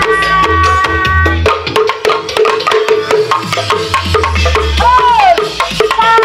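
Loud music with fast hand-drum percussion played through a portable speaker sound system, with a melody note that slides downward about five seconds in. Bamboo kentongan tubes are knocked along with it.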